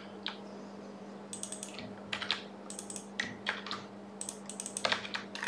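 Computer keyboard being typed on, several quick runs of keystrokes with short pauses between them.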